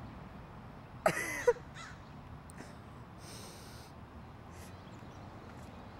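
A person's brief squawking vocal noise about a second in, short and loud with a bending pitch, followed by faint breathy, rustling sounds over a steady outdoor hiss.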